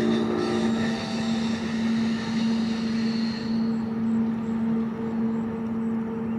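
A passing train runs with a steady low hum. Wheel and rail noise fades out in the first second or so.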